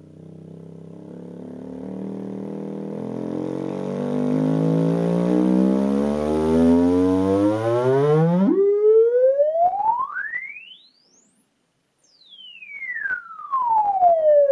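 JBL Control CM42 4-inch woofer, out of its cabinet in free air, playing a sine sweep for an excursion test. A low tone heavy with buzzing overtones climbs steadily in pitch, turns into a clean whistle a little over halfway through and rises until it fades out near the top. After a moment's gap it sweeps back down from a high whistle.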